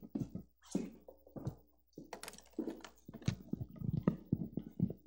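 Irregular knocks, bumps and rustles of objects and papers being handled at a wooden lectern.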